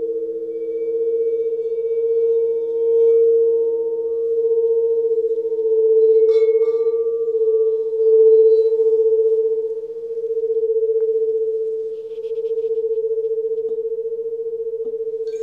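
Crystal singing bowls sounding a sustained hum of several steady tones, swelling and ebbing slowly in loudness. A faint higher ring joins about six seconds in.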